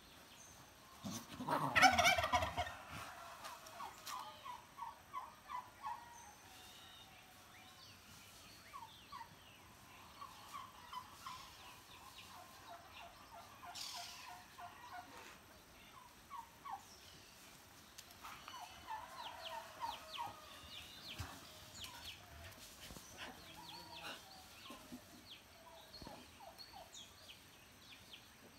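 Farmyard fowl calling: a loud call about two seconds in, then repeated short runs of quick notes on and off.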